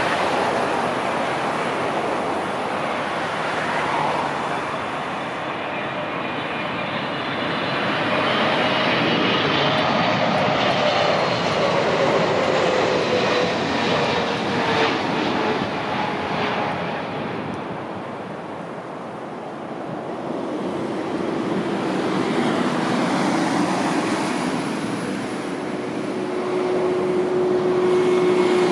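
Jet airliner on landing approach passing close by. The engine noise swells, and a whine drops steadily in pitch as it goes past. The noise eases off, then builds again near the end.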